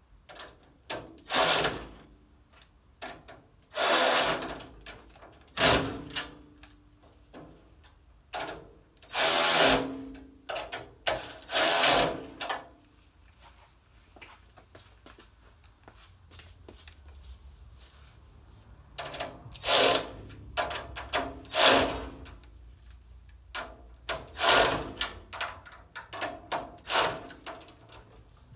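Handheld power drill run in short bursts of about half a second to a second, about a dozen times, with clicks and knocks of handling in between.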